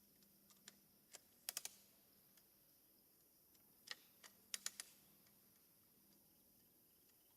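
A few faint, sharp clicks over near silence: three in quick succession about a second and a half in, then a single click and another quick run of three a few seconds later.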